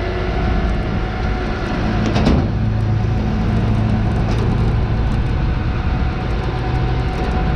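Rollback tow truck's engine running steadily with a droning hum while the winch pulls the wrecked box truck up the tilted bed; a brief loud noise about two seconds in.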